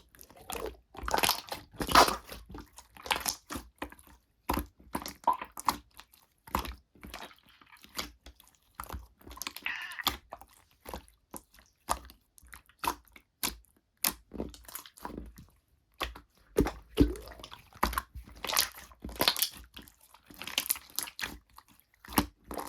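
Slime being kneaded, pressed and stretched by hand, giving an irregular run of sharp clicks and crackling pops with some squishing.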